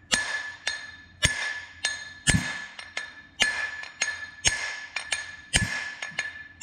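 Hammer blows tapping the crankshaft home in the crankcase of a Honda TRX200SX engine: about two sharp strikes a second, each leaving a ringing metallic tone.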